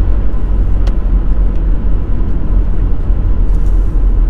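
Steady low rumble of a 2014 VW Caddy van driving, with engine and tyre noise heard inside the cabin.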